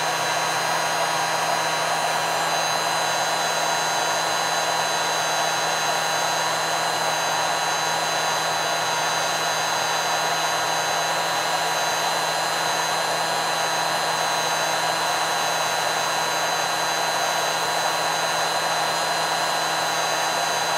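Heat gun blowing steadily while it melts a plastic fork. Its fan makes a constant rushing hiss with a steady motor whine on top, unchanging throughout.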